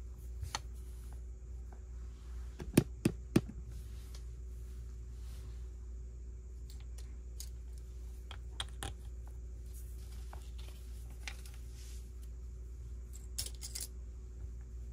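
Plastic Lego pieces being handled and fitted together: scattered small clicks and rattles, with three sharp clicks in quick succession about three seconds in and another little flurry near the end.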